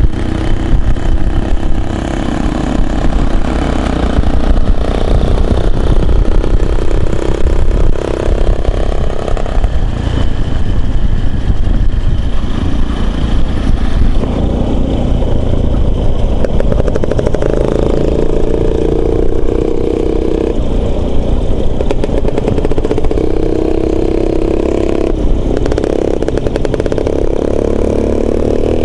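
Motorcycle engine running under way, its pitch stepping up and down several times with throttle and gear changes, over a heavy low rumble of wind on the microphone.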